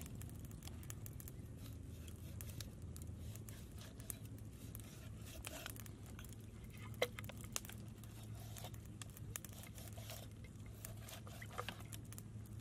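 A knife and hands cutting and pulling at a whole raw chicken on a wooden cutting board: small wet squishing, tearing and crunching clicks scattered throughout, with one sharp click about seven seconds in. A steady low hum sits underneath.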